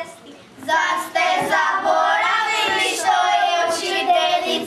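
Children singing together, starting about half a second in after a short lull.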